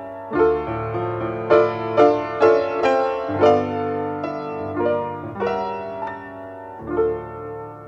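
Background piano music: melody notes and chords struck a few times a second over held bass notes.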